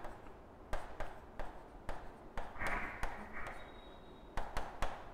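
Marker pen writing on a whiteboard: irregular sharp taps and short scratchy strokes as letters are formed, with a longer hissing stroke about two and a half seconds in.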